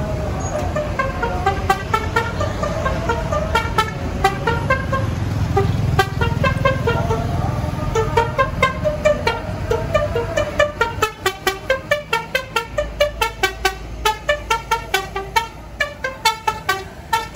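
A tour bus's Basuri telolet horn playing a fast tune of short musical toots, about three notes a second, with the bus engine running underneath; the engine drops away in the second half, leaving the toots clearer.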